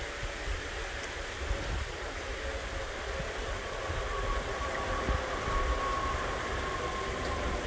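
Steady rush and low rumble of wind on the microphone and water draining out of a lock chamber as the boat is lowered. A faint thin whine comes in about halfway and fades near the end.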